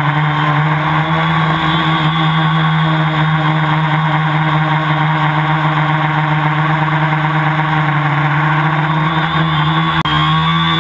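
Tricopter's electric motors and propellers droning at one steady pitch, heard from the camera mounted on the craft.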